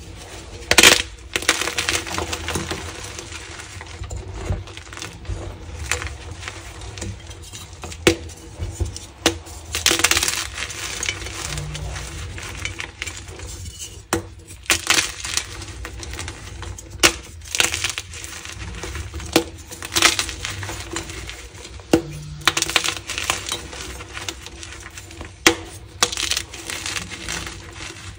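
Gym chalk crushed and crumbled by hand: thin white chalk pieces and a dyed chalk block snapping and crunching into chunks and powder. Sharp snaps every second or two stand out over a steady crackle.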